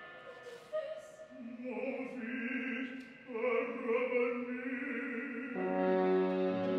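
A small instrumental ensemble playing orchestral music live. It starts softly, wavering sustained notes enter about a second in, and a fuller held chord with low strings comes in near the end.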